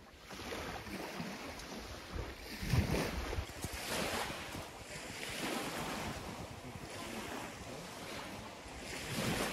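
Small waves lapping onto a pebble lakeshore, each wash swelling and fading every second or two, with wind on the microphone.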